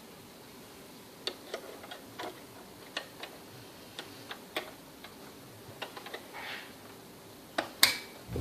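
Irregular light clicks and taps from hands working the parts of a sewing machine, with a short rustle about six and a half seconds in and a sharper knock near the end.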